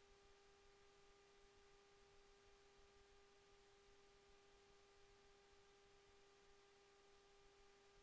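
Near silence: faint hiss with a steady low tone.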